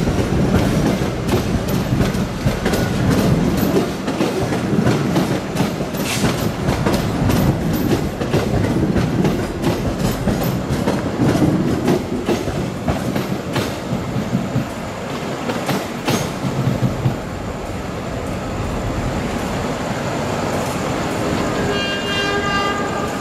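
Passenger train pulling out of the station, its wheels clicking over the rail joints as the last coaches pass, dying down after about seventeen seconds into a steady rumble. Near the end a pulsing train horn sounds.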